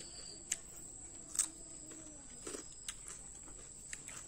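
Eating by hand: fingers working rice and mouth smacks and sharp clicks while chewing cooked snails, the strongest click about a second and a half in, over a steady faint high-pitched whine.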